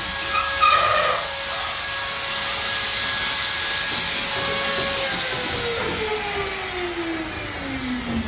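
An electric motor running steadily with a whining hiss, then switched off about five seconds in and winding down, its whine falling in pitch over about three seconds. There is a brief louder sound just under a second in.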